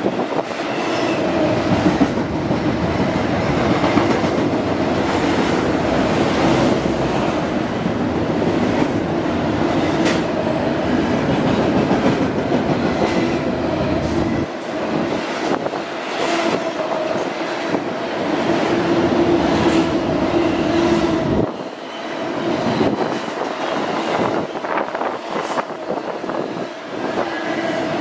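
Intermodal container freight train rolling past: a steady rumble of steel wheels on rail with a running hum and repeated clicks over the rail joints.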